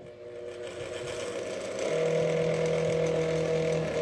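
Old oscillating desk fan switched on, its electric motor spinning up over about two seconds to a steady hum. The owner suspects a stripped gear.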